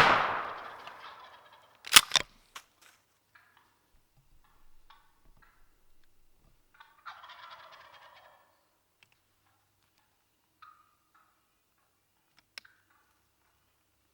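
The echo of a shotgun blast dies away, then two sharp knocks come about two seconds in. About seven seconds in, a wild turkey gobbles once, a rattling burst of about a second, and faint bird calls follow.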